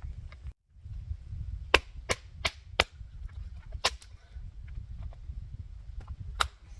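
Sharp chopping strikes on wood, six of them at uneven intervals, the first four in quick succession, over a low steady rumble.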